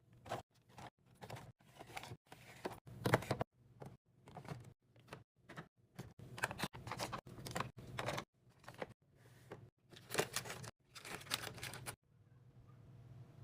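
Restocking handling sounds: a quick run of rustles, taps and clicks as snack packets and drink containers are picked up and set down, broken by abrupt silent gaps. A steady low hum comes in near the end.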